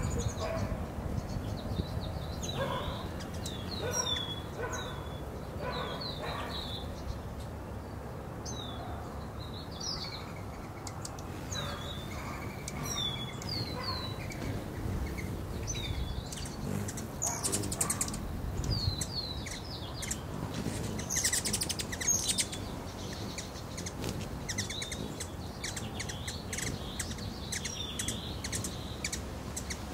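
Hummingbirds at a feeder giving many short, high chip calls, scattered singly and in quick runs, growing busier in the second half.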